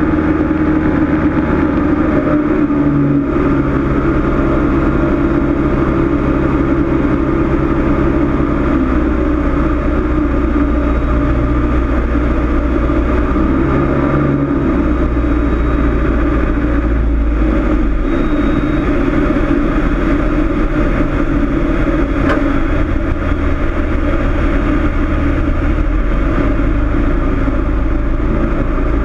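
Cessna 162 Skycatcher's four-cylinder Continental O-200 engine and propeller running steadily, a loud drone whose low pitch shifts slightly every few seconds.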